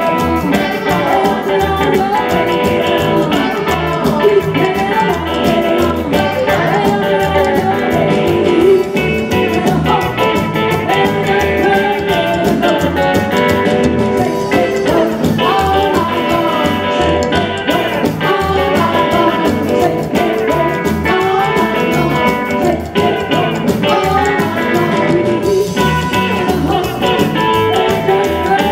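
Live rockabilly band playing: hollow-body electric guitar, upright double bass and drum kit, with a woman singing.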